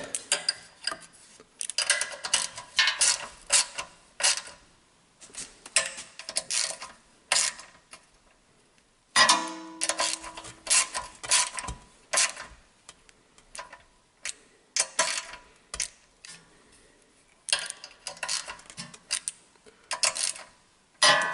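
Irregular light metallic clicks and taps of hand tools and bolts as fasteners on a small engine are tightened by hand, with a louder run of clicks about nine seconds in.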